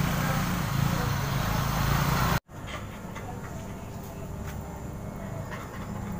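An engine running under a steady outdoor hiss, which cuts off abruptly about two and a half seconds in. A quieter steady hum with a few faint clicks follows.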